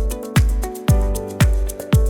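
Electronic dance music: a steady deep kick drum about twice a second under held synth chords and quick hi-hat ticks.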